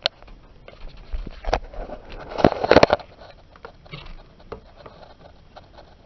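Clicks, knocks and rustling handling noise from a handheld camera being moved about between windows, with a louder scraping rustle about two and a half seconds in.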